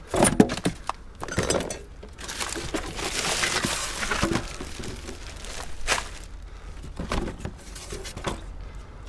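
Rummaging through a pile of discarded household junk: irregular knocks and clatters of hard items being moved and handled, with a stretch of rustling in the middle.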